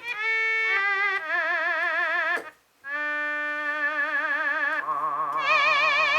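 Roland JX-3P analog synthesizer with the Kiwi-3P upgrade playing its Voice preset: a melody of held, vocal-like synth notes with vibrato. The line breaks off briefly about two and a half seconds in, and a lower held note joins underneath in the last second or so.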